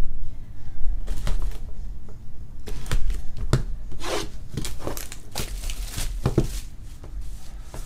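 Plastic wrapping on a trading-card hobby box being torn open and crinkled by hand, with irregular sharp crackles as the box is opened.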